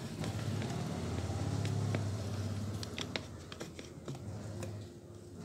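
Scattered light clicks and taps of plastic and metal parts being handled on a Kyocera TASKalfa copier drum unit, over a low steady hum that fades in the second half.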